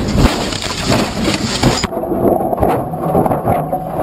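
Race car crashing, heard from inside the cockpit: a dense jumble of hard impacts, crunching and scraping as the car tumbles and debris strikes the body. About two seconds in the sound turns duller, with further knocks.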